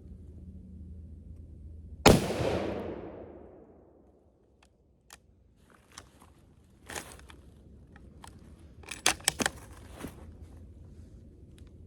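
A single close rifle shot, very loud and sudden, its report rolling away over about two seconds. It is followed by a scatter of short, sharp clicks and knocks.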